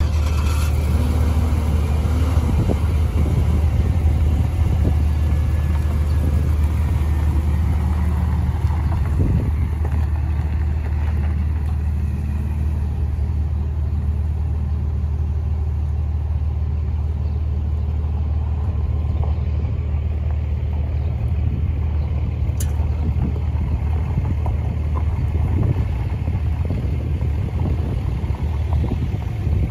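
2004 GMC 1500 pickup truck being driven at low speed, its engine running steadily with a low rumble. One sharp click about three quarters of the way through.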